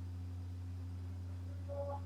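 A steady low hum, with one short, faint, high-pitched chirp near the end.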